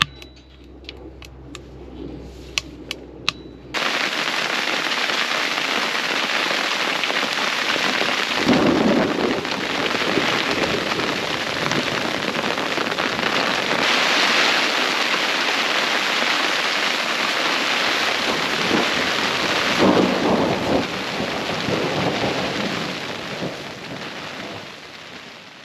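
A few faint clicks, then suddenly about four seconds in, heavy storm rain and wind on the tent, a loud, steady rush with a few deeper rumbles of thunder swelling through it.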